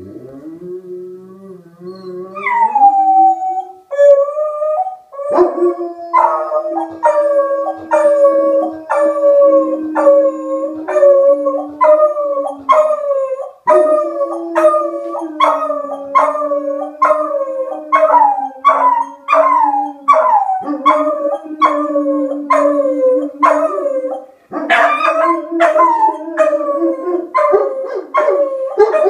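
A beagle and a German Shepherd howling along with a tornado siren. The siren winds up over the first few seconds and then holds a steady tone. Over it the dogs give repeated falling howls, a little over one a second, growing louder near the end.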